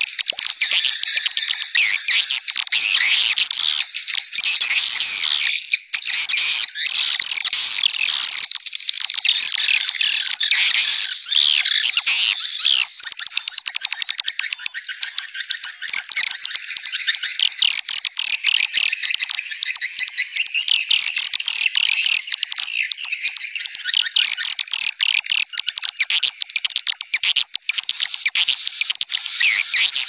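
Swiftlet lure call (suara tarik walet): a dense, continuous chorus of rapid, high twittering chirps from many swiftlets, a recording played at a swiftlet house to draw the birds in to roost at dusk. It breaks off very briefly about six seconds in.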